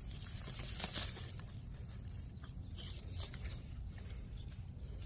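Faint rustling and light scratching over a low steady rumble, with a short hissy rustle about a second in.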